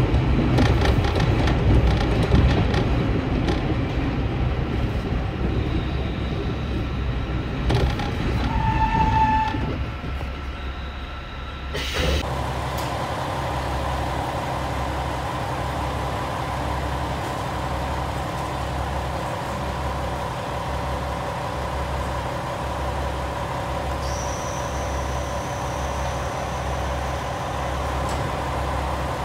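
Inside a KiHa 47 diesel railcar as it slows into the station, its running rumble dying away, with a short high tone about nine seconds in. After a cut, the railcar's diesel engine idles at the platform with a steady, pulsing hum.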